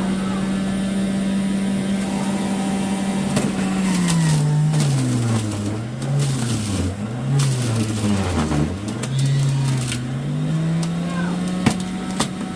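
Electric juicer motor running with a steady hum while juicing carrots. In the middle it bogs down and picks back up several times as it takes the load of the carrot pieces, then runs steady again.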